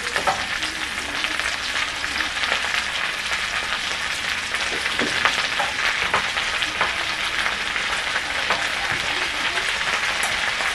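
Diced potatoes and onion sizzling in oil in a steel kadhai over a low gas flame, a steady hiss with scattered small crackles, as handfuls of chopped spinach are piled on top.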